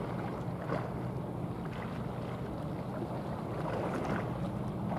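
Steady low drone of ship diesel engines from the cargo ship and the tugboat alongside it, with wind on the microphone and water noise.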